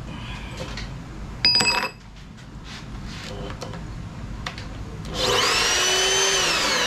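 A CNC machine's motor-driven table travelling along its ball screw, giving a rising whine as it speeds up about five seconds in, holding steady, then starting to fall as it slows near the end. A short sharp metallic ring comes about a second and a half in.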